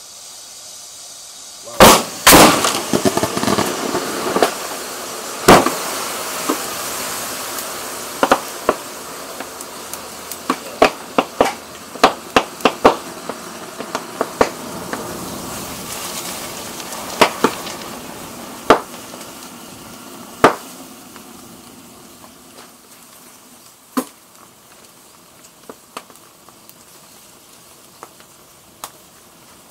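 A Panasonic Quintrix CRT television goes off with a loud bang about two seconds in as it vents and catches fire. A hiss follows and slowly fades, with many sharp cracks and pops from the burning set that thin out toward the end.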